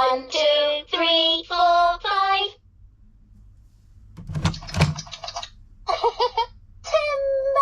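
Fisher-Price Linkimals toys' recorded cartoon character voices: a run of short sung syllables, a pause broken by a brief thump about four and a half seconds in, then more short chirpy spoken phrases.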